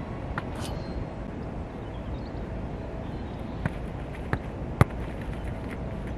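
A football being struck and bouncing: sharp single thuds, one under a second in and three close together about four to five seconds in, the last the loudest, over a steady low background noise.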